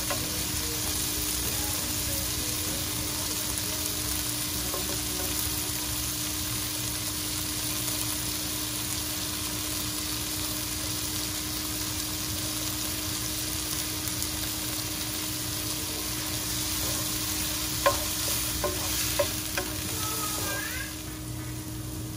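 Sliced onions, garlic and green chilies frying in hot oil in a nonstick frying pan: a steady sizzle as the onions are fried down toward golden brown, with a few light clicks near the end.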